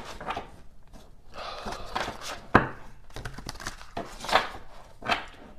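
Tarot cards being handled: soft sliding and rustling, with a sharp tap on the table about two and a half seconds in.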